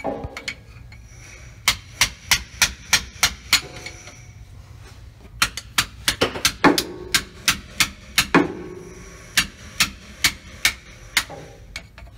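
Hammer striking steel on a Freightliner truck's driveshaft center support (carrier) bearing, in quick runs of sharp blows about three a second with short pauses between, a few blows ringing on briefly. The work is the replacement of a carrier bearing found seized.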